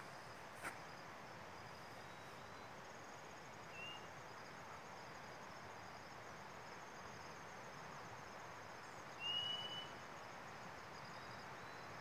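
Rural outdoor ambience: insects trilling steadily at a high pitch, with a bird giving two short whistled notes, the second and louder a little after nine seconds in, over a faint steady hiss. A single brief click comes near the start.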